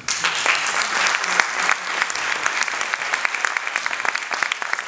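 Audience applauding, starting suddenly and thinning out toward the end.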